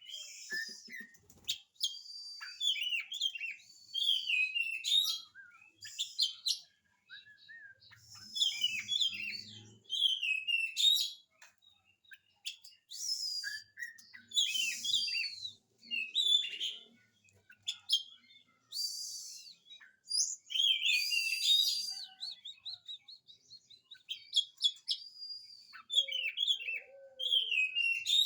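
Oriental magpie-robin in full song: a varied run of high whistled and chattering phrases, delivered in bursts with short pauses between them.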